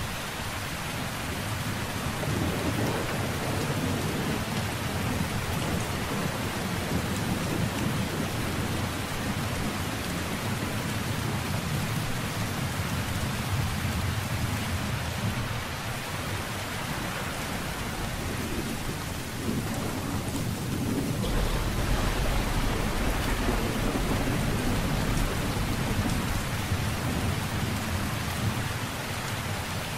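Thunderstorm: steady heavy rain with low rolling thunder. A deeper, louder rumble sets in about two-thirds of the way through.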